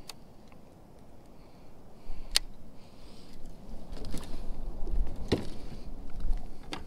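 A handful of separate sharp clicks and knocks, about four over several seconds, as fishing gear is handled aboard a plastic kayak, over a low rumble.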